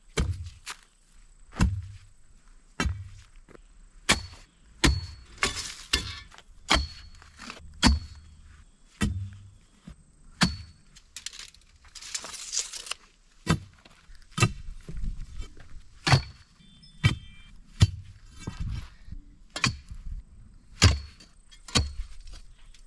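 Steel digging tool striking into rocky soil while a fence-post hole is dug, about one strike a second, each a sharp hit and some with a brief metallic ring.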